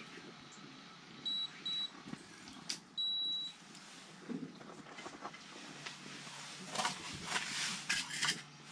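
An electronic device beeping: two short high beeps, then a single longer beep about a second later. Light clicks and knocks of handling follow near the end.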